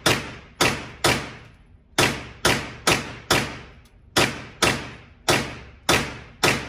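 Draco AK-pattern pistol in 7.62×39mm fired in rapid semi-automatic shots, about a dozen in three quick strings with brief pauses between them. Each shot echoes off the walls of an indoor range, and the firing stops shortly before the end.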